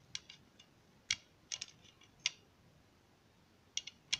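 Light, sharp clicks and taps of metal and plastic parts on a steel counterweight gimbal stabiliser as it is handled and a screw is fitted into it. There are about ten scattered ticks with quiet between them.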